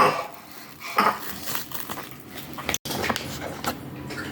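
Eating utensils clinking and scraping against a dish, a few separate sharp clinks.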